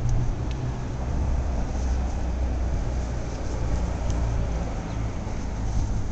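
Steady low rumble of vehicle traffic, with a few faint clicks.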